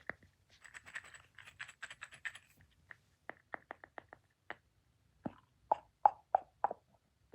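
Close-miked ASMR trigger sounds: a quick cluster of crackly clicks, then single sharp clicks, then about five louder hollow, pitched taps near the end.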